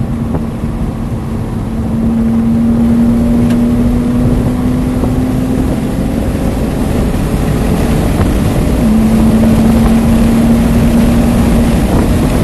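BMW Z3's engine accelerating hard, heard from inside the car: a steady note climbing slowly in pitch, breaking off about six seconds in and coming back lower, as at an upshift, over wind and road noise.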